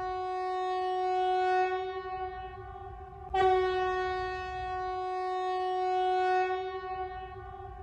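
Emergency alert system alarm tone: a steady, buzzy horn-like tone that cuts off and starts again about three and a half seconds in.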